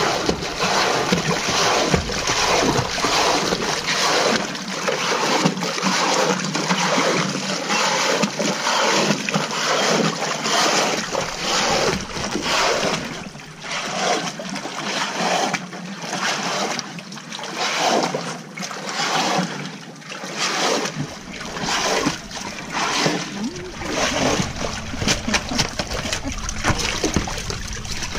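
Water splashing and churning at the surface around a scuba diver cleaning a boat hull, a busy, uneven run of splashes.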